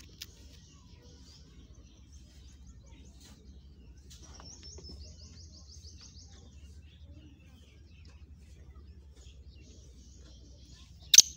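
Faint high bird chirps, with a fast run of about a dozen high notes in the middle, then right at the end one loud, sharp call from the four-month-old black francolin.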